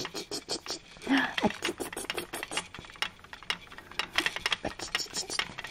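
Irregular clicking and rattling, several clicks a second, as from the plastic toys hanging on a baby bouncer's toy bar being knocked about. A short voice sound comes about a second in.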